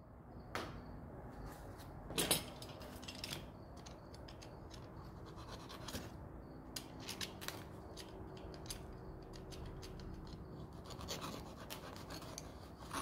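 Packaging being opened and handled by hand: scratching, rubbing and scattered small clicks, with a sharper knock about two seconds in, over a faint steady hum.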